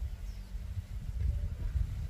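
Low, uneven wind rumble on the microphone in an open field, with a faint bird chirp about a third of a second in.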